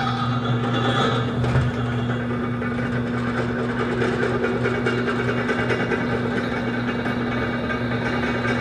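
Floor-standing drill press running with a steady motor hum while its bit drills a hole about half an inch across through steel pipe.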